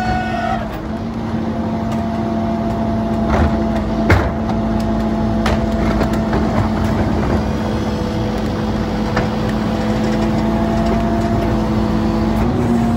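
Autocar ACMD Loadmaster rear-loader garbage truck running steadily with a constant hum as its hydraulic cart tipper works, rising slightly in pitch near the end. A few sharp knocks of plastic trash carts against the tipper come a few seconds in, the loudest about four seconds in.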